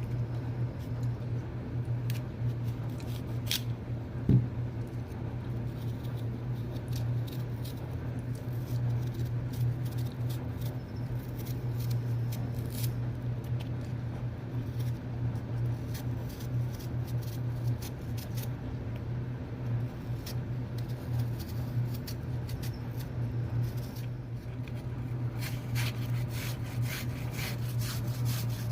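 Piglets eating apple: scattered crunching and chewing clicks, busiest near the end, with one thump about four seconds in, over a steady low hum.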